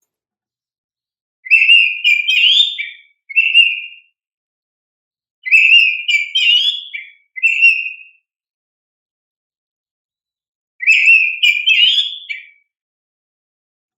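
Oriental magpie-robin (kacer) in full song: three loud phrases of quick whistled notes and glides, starting about a second and a half in, about five and a half seconds in and about eleven seconds in, with silence between them.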